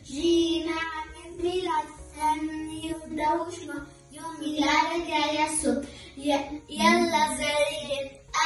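Two young girls singing a hymn together, in sung phrases of a couple of seconds broken by short pauses for breath.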